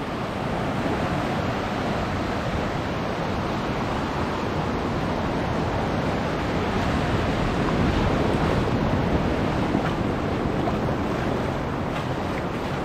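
Steady rushing noise of sea surf and wind, with wind buffeting the microphone.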